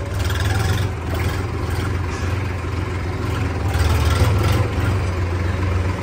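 Massey Ferguson tractor's diesel engine running under way, heard from the driver's seat: a deep, steady drone that swells slightly about four seconds in.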